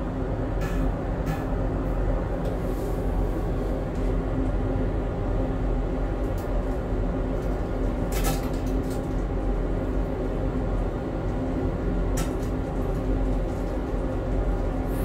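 Steady low mechanical rumble in the kitchen while minced garlic fries in a little oil in a steel pan, with a few light clicks and taps scattered through it.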